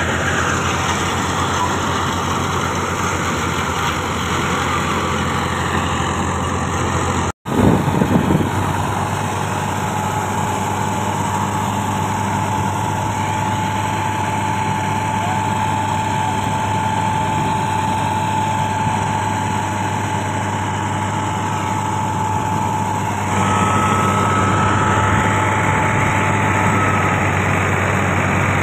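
Tractor-driven wheat threshing machine running: a steady engine drone with a steady high whine over it for much of the time. It drops out briefly about seven seconds in and comes back louder for a moment.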